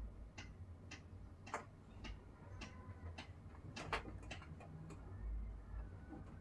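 Steady, even ticking, about two ticks a second, over a faint low hum of room noise.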